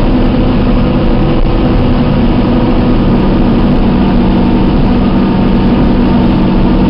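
John Deere self-propelled forage harvester with a six-row maize header running steadily while cutting and chopping maize for silage: a loud, even machine drone at a constant pitch.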